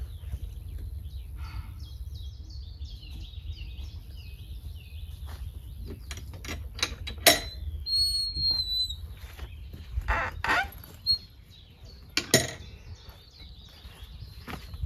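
Small birds chirping and singing while a wooden field gate with a metal latch is worked open and shut, giving a run of sharp clanks and knocks, loudest about seven and twelve seconds in. Footsteps on dry leaves follow near the end.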